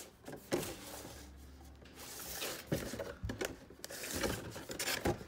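A cardboard box being handled and turned over on a table: scattered taps, knocks and scrapes, with rustling in between.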